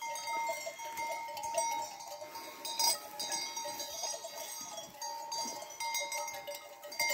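Many bells worn by a grazing flock of sheep ringing and clanking continuously, with the sheep bleating now and then.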